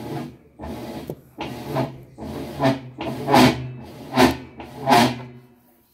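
Vertical modular top-load washer agitating with an empty tub on its short agitate cycle: a steady motor hum under a hissing swish with each stroke of the agitator, about five strokes, growing louder, and the motor stops near the end. The newly replaced gearcase, bearings and seal are being run in to seat.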